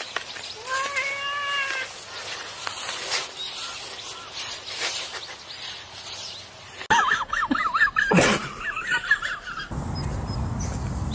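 A tabby cat meows once, a single arching meow about half a second in. Later comes a louder run of quick high chirping calls lasting a few seconds, and a steady low rush begins near the end.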